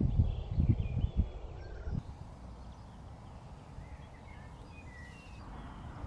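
Wind buffeting the microphone in irregular low rumbles for about two seconds, then a quieter outdoor background, with several small birds chirping and singing faintly throughout.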